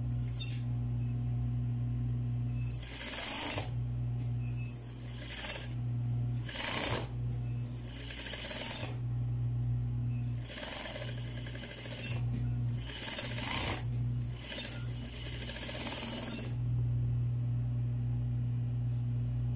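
Electric sewing machine running in stretches: a steady hum broken by brief pauses, with short bursts of hissy noise recurring throughout.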